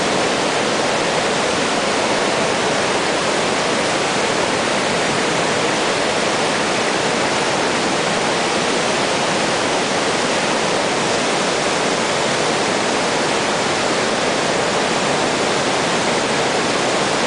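A river in flood, swollen by heavy rain, rushing through brown rapids and over boulders as a steady, unbroken roar of white water.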